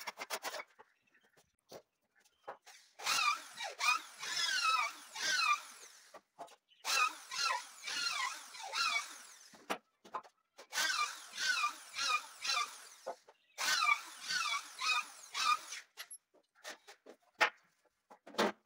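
Hand saw cutting a wooden batten in four bursts of quick back-and-forth strokes, each stroke a rasp with a whistling tone that bends up and down, with short pauses between bursts. Scattered knocks of wood being handled near the end.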